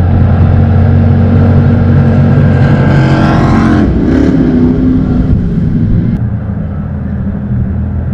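Two racing jet boats' engines running at full speed as they pass, loudest about three to four seconds in, with the pitch dropping as they go by, then fading. A steady low drone sits underneath throughout.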